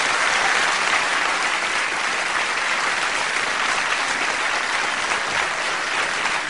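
Theatre audience applauding steadily at the end of a stand-up comedy sketch.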